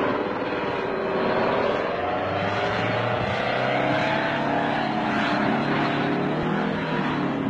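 V-22 Osprey tiltrotor's engines and rotors running as the aircraft rolls out of control, a steady drone with a whine that wavers up and down in pitch and a lower hum joining about two seconds in.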